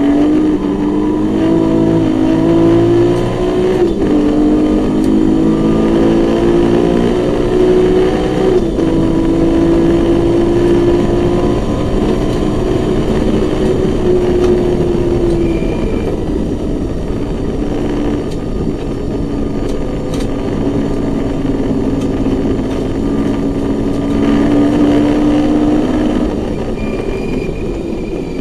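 Naturally aspirated 2.7-litre BMW M20 straight-six in an E21 race car, heard from inside the cabin, pulling hard under full throttle: its pitch climbs and drops with two upshifts in the first nine seconds, holds high along the straight, then drops about halfway in and runs lower before falling away near the end.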